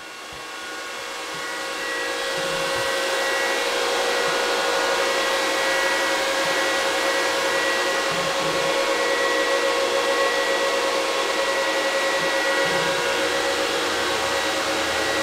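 The cooling fans of a Bitmain Antminer S19j Pro ASIC bitcoin miner are running: a steady rush of air with a high whine on top. The noise fades in over the first few seconds.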